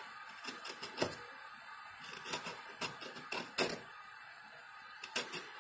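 Craft knife trimming a frayed cut edge: a run of small, irregular scrapes and clicks.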